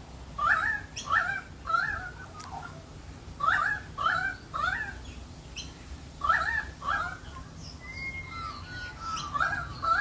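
Australian magpies calling: short rising-then-falling notes in groups of two or three, then a run of warbled, steadier notes near the end.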